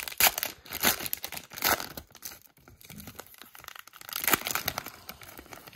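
Wrapper of a Topps 2021 Formula 1 trading-card pack crinkling and tearing as it is ripped open by hand, in several irregular rustling bursts, the loudest about four seconds in.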